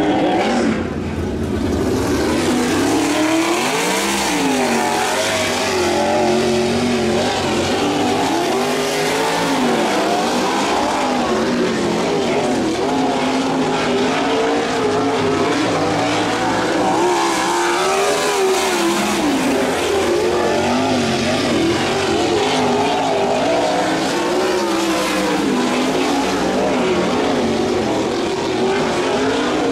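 Sprint car's methanol-burning 410 V8 lapping a dirt oval alone, its engine note climbing and dropping again and again as it drives off the corners and lifts into them.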